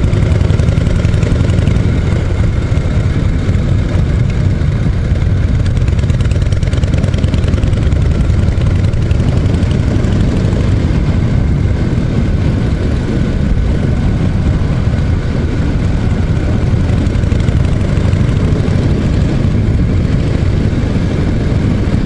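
Harley-Davidson Shovelhead air-cooled V-twin running steadily as the motorcycle is ridden at an even road speed, with no revving or gear changes.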